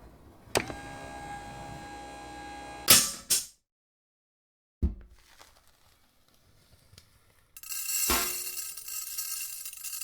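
Homemade impact sound effects for a collapsing tower: a metallic strike that rings for about two seconds, two loud hits, a single thud, then a long bright crashing clatter with metallic ringing near the end.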